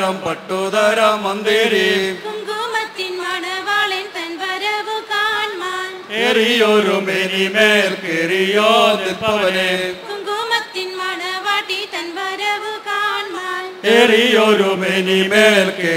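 Mixed group of men and women chanting a traditional Malayalam song in unison into stage microphones, the sound swelling louder every six to eight seconds.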